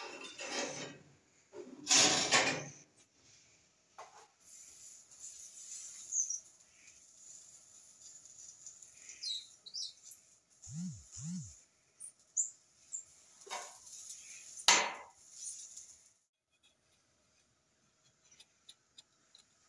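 A knife and hands working on a round metal tray: intermittent clinks, scrapes and clatter, the loudest about two seconds in and again about two-thirds of the way through. A few faint high chirps are heard between them.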